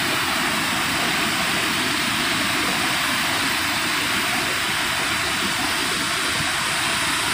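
Steady rushing of water pouring over a river dam spillway, an even, unbroken noise.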